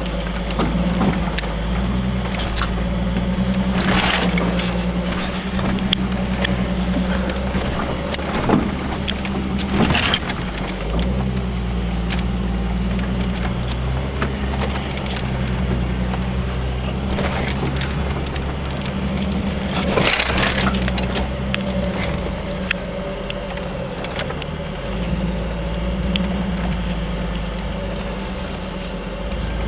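Jeep Cherokee's engine pulling steadily at low speed up a steep, rocky off-road hill, heard from inside the cab. Frequent light rattles and jangling, with a few sharper knocks as the truck goes over rocks.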